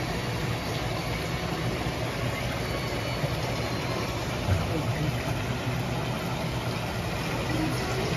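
Aerated water churning in a live lobster tank, a steady rushing noise over a continuous low hum from the tank's circulation equipment.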